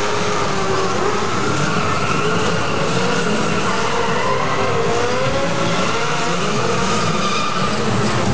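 Stunt cars and motorcycles revving hard while spinning their tyres in smoky burnouts and drifts on pavement, with continuous, wavering tyre squeal.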